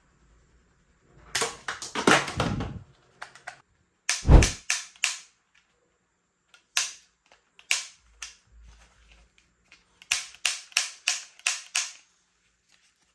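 Toy gun being worked and fired: a run of sharp clicks and snaps, a heavier thump about four seconds in, then a quick string of six clicks near the end.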